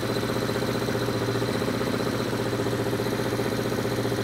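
Vintage Honda four-cylinder motorcycle engine running steadily at a fast idle of about 2,000 rpm, held at the reference speed while its carburetors are vacuum-synchronized.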